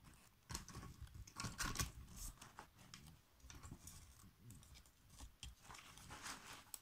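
Handling noise of a lightweight aluminium camera tripod being adjusted as its center column is pulled up: irregular small clicks, knocks and scrapes of its metal tubes and plastic joints, a few sharper ones about half a second in and again around two seconds in.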